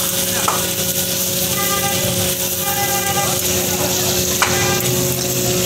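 Mutton karahi sizzling in an iron karahi wok over a charcoal fire while a metal ladle stirs it, with two sharp knocks of the ladle against the pan, one near the start and one about four seconds later. A steady low hum runs underneath.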